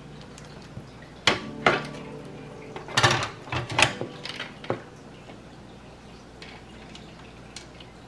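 Corsair RM850x power supply's metal housing knocking and scraping against the metal PC case as it is fitted into the power-supply bay. Two sharp clacks about a second in, a quick cluster of knocks around three to four seconds, then one last knock near five seconds.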